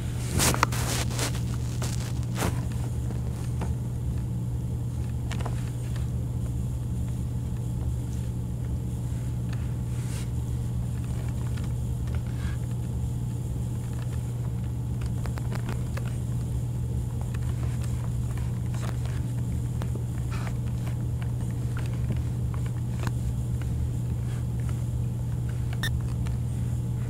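Steady low electrical or motor hum, with a few faint clicks and knocks, a cluster of them about half a second in.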